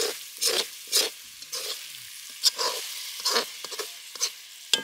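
A spatula scraping and stirring fish curry that has cooked down in a kadai, in short strokes about once or twice a second, with oil sizzling faintly underneath.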